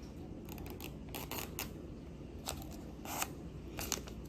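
Sheet of paper rustling and crackling in several short bursts as a paper airplane's wings are folded and creased, one of the bursts longer than the rest.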